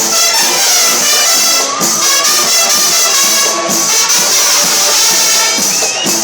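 Loud live band music with brass instruments and percussion, playing steadily throughout.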